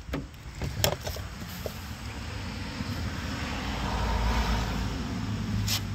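A passing vehicle: a steady engine and road rumble that builds to a peak about four seconds in, then eases off. There are a few faint clicks, one about a second in and one near the end.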